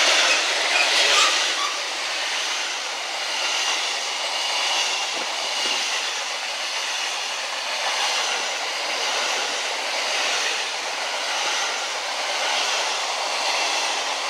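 Freight train wagons rolling past close by at speed: a steady rush and rattle of wheels on rail, with a thin high squeal running through it in places.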